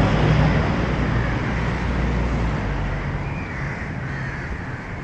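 Street traffic: a passing vehicle's engine hum and road noise fading away over the first couple of seconds, then birds calling a few times near the end.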